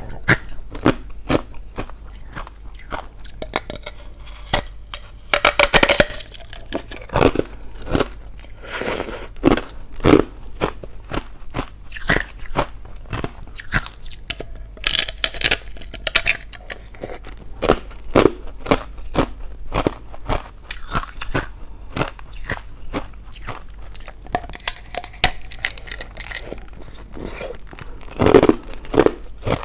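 Teeth biting and chewing thin-walled hollow ice shaped like a drinking glass: a dense, irregular run of sharp crunches and cracks as pieces of the ice wall snap off and are ground between the teeth.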